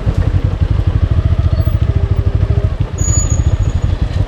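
Motorcycle engine running at low revs, its exhaust pulsing unevenly, picked up by the action camera's own microphone.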